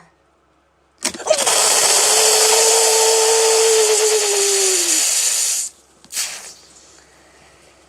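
Mentos-and-cola eruption: a loud, steady spraying hiss that starts about a second in and lasts about four and a half seconds, with a steady tone underneath that drops in pitch just before it stops. A short burst of hiss follows.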